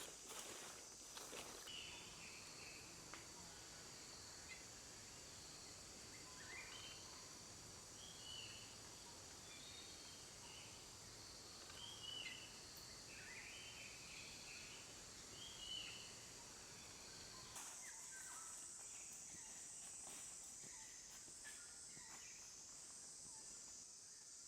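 Faint steady high-pitched buzzing of forest insects, with short chirping calls scattered over it; about two-thirds of the way through, the insect sound abruptly changes and grows a little stronger.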